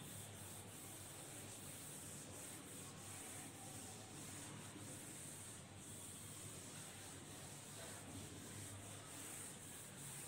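Faint, steady rubbing of a felt duster wiped across a whiteboard, erasing it.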